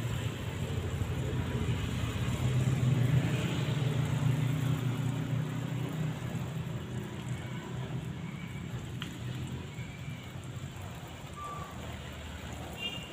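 A low engine drone from a passing vehicle swells to its loudest about three seconds in and slowly fades. Under it, water from a watering can's rose spout splashes onto leaves, and a few short chirps come near the end.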